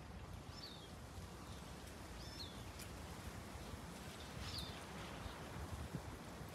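A songbird repeats the same short, high, falling call three times, about two seconds apart, over faint steady outdoor background noise.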